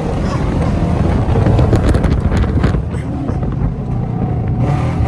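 Straight-piped Chevrolet Camaro SS V8 running with a loud, choppy low rumble, its misfires since repaired, with wind buffeting the microphone.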